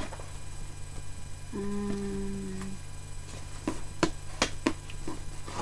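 A woman hums one held low note for about a second, then a few short crinkles and taps as papers and items are handled in a cardboard box, over a steady low electrical hum.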